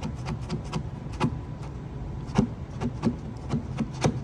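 Gasket scraper blade on a magnetic bit in a screwdriver handle, scraping and catching on a taped metal panel: a string of irregular sharp clicks over a low steady hum.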